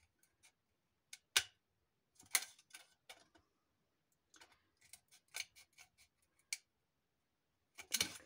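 Scissors snipping strips of plastic bottle, a run of irregular sharp cuts with the loudest near the start and near the end.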